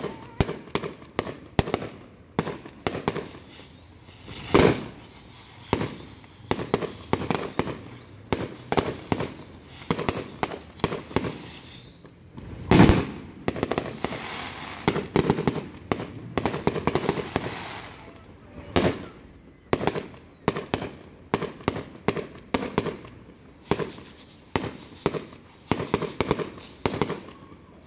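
Aerial fireworks shells bursting in quick succession, several sharp bangs a second, the loudest about 13 seconds in.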